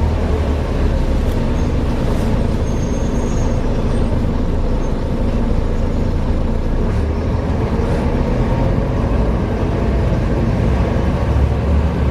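Volvo B7TL double-decker bus running, a steady heavy drone with faint knocking and ticking mixed in. The uploader puts the knocking down to a bad differential.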